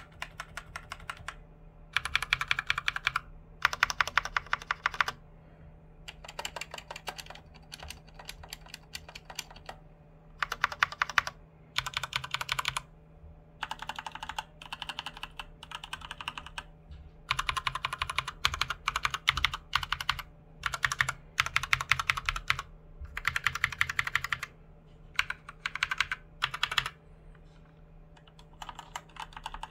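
Typing on a Thunderobot KG3104R mechanical keyboard with red linear switches. Quick runs of rapid key clacks, each about a second long, come one after another with short pauses between them.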